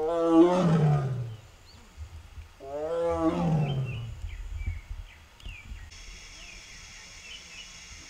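An Amur tiger roars twice, about two and a half seconds apart. Each roar is a long call that falls in pitch. Birds chirp faintly in the background.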